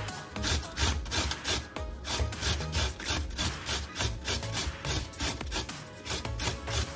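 Carrot being grated on a stainless steel box grater: quick, rhythmic rasping strokes, about three a second, with background music under it.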